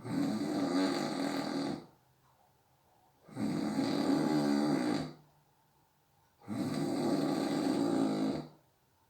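A sleeping person snoring: three long snores about three seconds apart, each lasting nearly two seconds.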